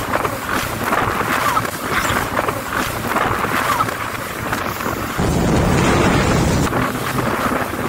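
A jet ski running at speed over choppy sea: wind rushing over the microphone and water spray hissing along the hull. About five seconds in it gives way for a second and a half to a louder, deeper rush of water spray.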